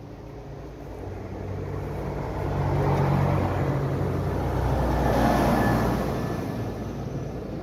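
A motor vehicle driving past, its engine and tyre noise growing louder to a peak around three to six seconds in, then fading away.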